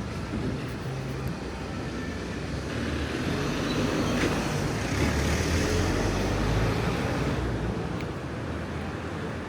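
A motor vehicle driving past, its engine and tyre noise growing louder for a few seconds and then fading away.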